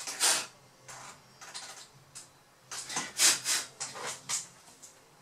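A string of short scrapes and rustles from hands working with a laptop's heat-pipe cooler, the loudest near the start and about three seconds in.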